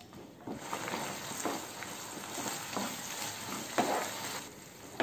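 Spatula stirring a watery potato, green pea and coconut-paste kootu in a nonstick pan as it sizzles on the heat, coming up to a boil. The sizzling and stirring fade a little near the end.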